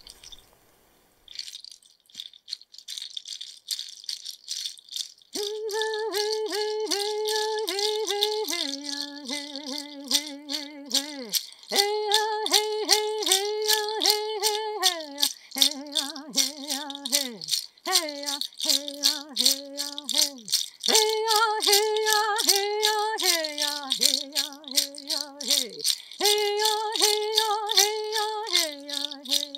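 A handheld rattle shaken in a steady beat, with a woman's voice joining about five seconds in, singing a chant without words in held notes, phrase by phrase alternating between a higher and a lower pitch and sliding down at the end of each phrase.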